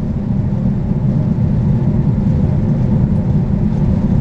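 A high-speed jet boat (jetfoil) under way at speed, heard on board: a steady low rumble of engine, water and wind, with a faint steady hum above it.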